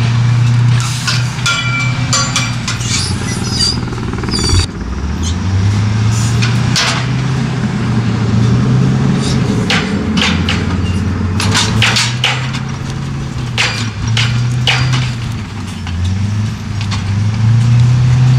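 Heavy log loader's engine running and revving up and down as its grapple works logs, with repeated sharp knocks and clanks of wood and metal.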